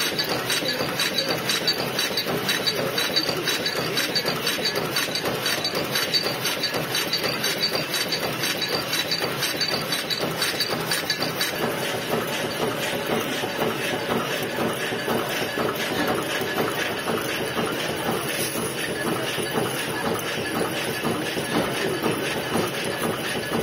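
Punch press stamping eyelets out of sheet metal at high speed: a fast, even, continuous metallic clatter of die strokes. About halfway in the sound shifts slightly, as finished metal eyelets spill from a chute into a bin.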